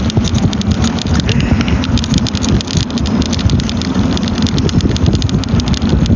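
Low rumble of a battery-powered mobility vehicle rolling along, with many small clicks and rattles throughout.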